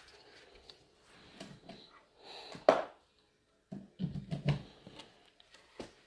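Light handling noise of a humidifier's power cord being unwound and handled: scattered rustles and small clicks, with one sharper knock about two and a half seconds in.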